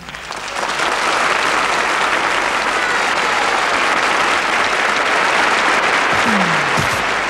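Theatre audience applauding, the clapping swelling up within the first second and then holding steady. Near the end a few falling low notes come in over the applause.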